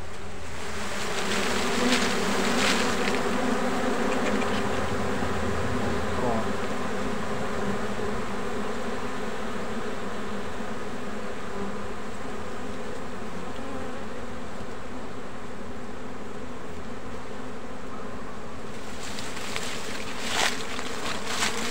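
A cluster of dwarf honey bees buzzing steadily as they swarm over and off a wild single open comb held close by, a little louder in the first few seconds. A few brief rustles or knocks come near the start and again near the end.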